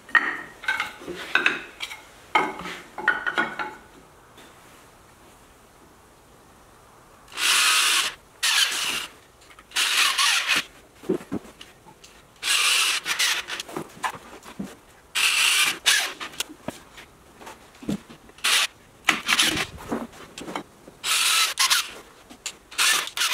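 Corded power drill run in short bursts, about nine of them of around a second each, working into wood; before that, a few seconds of scraping and knocks on wood.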